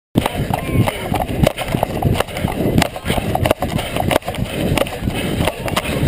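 Sound of running picked up by an action camera carried on the runner or the dog: irregular thudding footfalls and knocks, rubbing and jolting of the mount, and wind noise. It cuts in suddenly just after the start.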